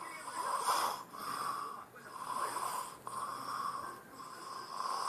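A sleeping young child snoring loudly and steadily, with a rasping noise on each breath about once a second.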